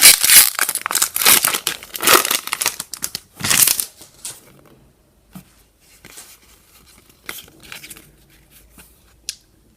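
Pokémon TCG booster pack's foil wrapper being torn open and crinkled, loud for the first four seconds, then only faint, scattered rustles.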